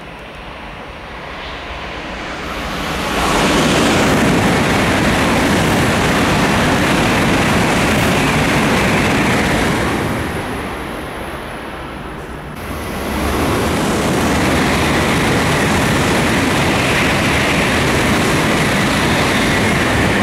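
Two N700-series Shinkansen trains running through a station at speed, one after another: a loud rush of wind and wheel noise that builds over the first few seconds and fades about ten seconds in. After a sudden cut, the second train's rush rises again and stays loud to the end.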